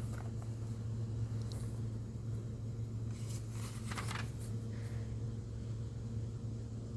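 Steady low room hum, with a few brief soft rustles of paper about halfway through as the hymnal's pages are handled.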